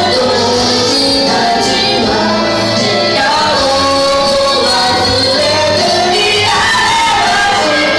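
A karaoke backing track of a Japanese pop song with a female voice singing along.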